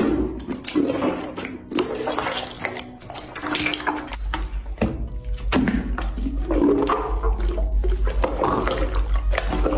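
Slime being squeezed and worked by hand, making irregular wet squelches and pops. A steady low hum joins about four seconds in.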